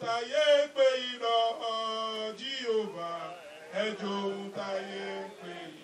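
A man chanting in a sung voice into a handheld microphone: long held notes that slide up and down in pitch, broken by short pauses.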